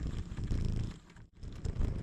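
Low rumble of a bicycle riding on a rough forest road, with wind on the microphone and tyres rolling over gravel, plus scattered small clicks. It cuts out briefly about halfway through, then resumes.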